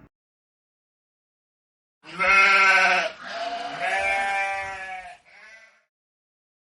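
Sheep bleating: two long bleats, the second longer, followed by a short faint one.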